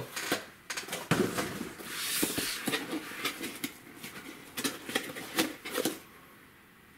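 Cardboard shipping box being handled and set down on a table: scraping and rustling of cardboard with several knocks, stopping about six seconds in.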